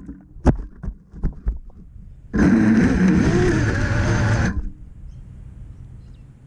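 A few knocks as an FPV quadcopter hits the branches and ground, then its motors and propellers whine up for about two seconds with a wavering pitch and cut off suddenly.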